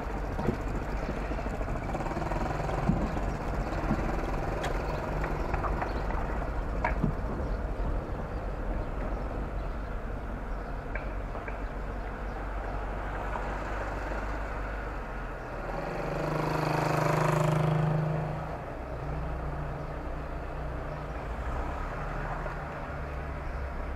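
A car's engine and road noise while driving, with a few light knocks in the first several seconds. About two-thirds of the way through, a louder engine note swells for about two seconds and fades.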